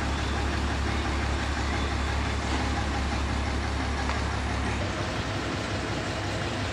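Mobile crane's engine running steadily; its deep low hum drops away nearly five seconds in, with the engine sound carrying on.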